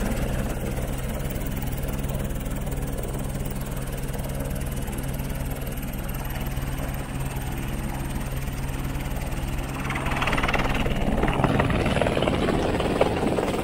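Airbus AS350-type single-engine helicopter hovering low over snow as it sets down, its rotor and turbine running steadily. About ten seconds in, a louder gusty rushing noise rises over the engine.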